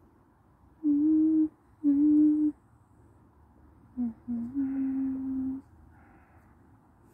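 A person humming a short tune: two held notes about a second apart, then two quick lower notes and one longer low note.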